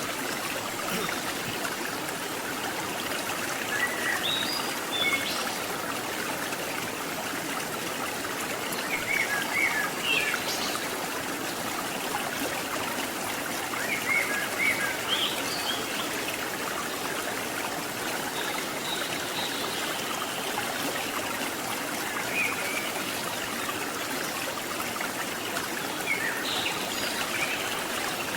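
Steady rush of a waterfall and its stream, swollen with rainy-season water, with short high bird chirps every few seconds above it.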